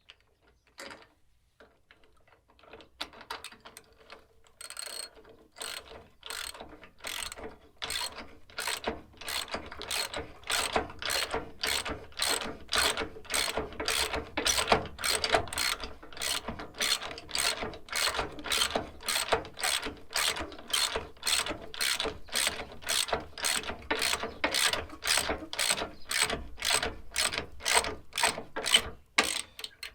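Socket ratchet wrench tightening a nut and bolt, its pawl clicking on each back-swing. The clicks come at about two a second, sparse and faint at first and then steady and even until the bolt is snug.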